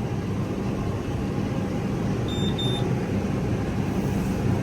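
Farm tractor engine running steadily, heard from inside the cab, with two short high-pitched beeps about halfway through.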